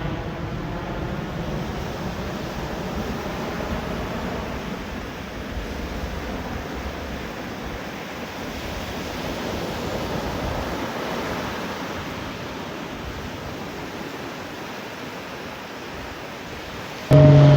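Jet aircraft engine noise: a steady rushing roar that slowly fades. Music cuts in abruptly just before the end.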